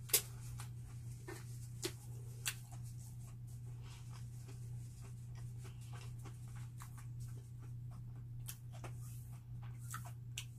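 Quiet eating sounds: small irregular clicks and crackles of chewing and handling food, with a few sharper clicks in the first three seconds, over a steady low hum.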